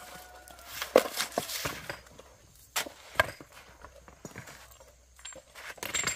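Rocks being handled and knocked against one another: irregular sharp knocks, the loudest about a second in and about three seconds in, with lighter clacks between.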